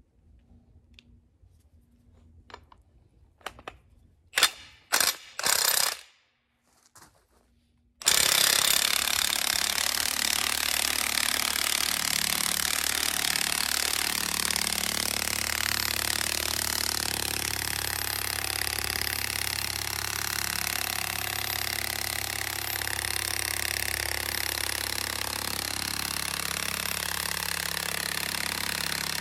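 Cordless power driver screwing a 46-inch hex-head Penetrator ground anchor down into the ground. It gives a few short bursts about four to six seconds in, then starts abruptly about eight seconds in and runs continuously, easing off slightly.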